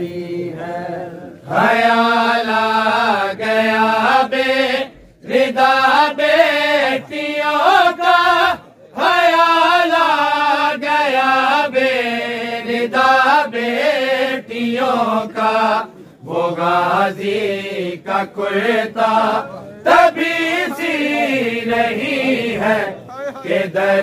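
Men's voices chanting an Urdu noha, a Shia lament, in long drawn-out melodic phrases with short breaths between them.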